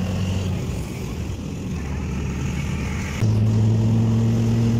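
Engine and road noise of a moving vehicle in city traffic. About three seconds in, a louder, steady low drone sets in suddenly and holds.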